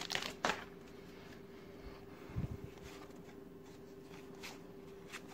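Faint handling of a card pack wrapper and a stack of baseball cards: a few crinkles as the wrapper comes off at the start, a soft low thump about two and a half seconds in, and light card clicks near the end. A steady faint hum runs underneath.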